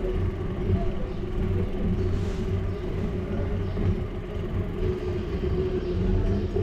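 Steady low rumble and vibration of a bicycle rolling over brick paving, as picked up by a bike-mounted camera, with a faint steady hum running under it.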